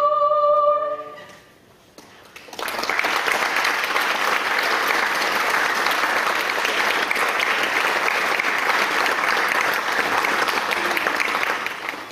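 A soprano's held final note ends about a second in. After a short pause, an audience applauds steadily for about nine seconds, dying away at the end.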